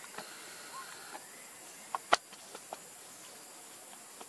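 A steady outdoor hiss with a short cluster of sharp clicks or snaps about two seconds in, one of them much louder than the rest.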